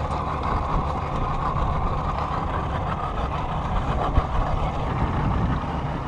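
Mercury outboard motor idling on a small fishing boat: a steady low rumble.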